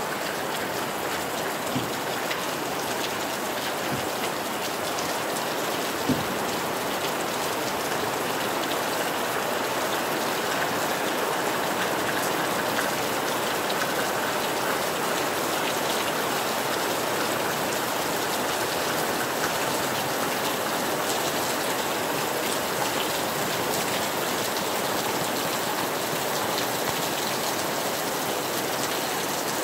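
Steady rain falling on sand, palm fronds and beach vegetation, an even hiss with a few sharper single drop taps about two, four and six seconds in.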